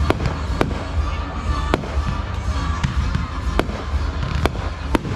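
Aerial fireworks bursting: sharp cracks and bangs about once a second over a continuous low rumble of booms.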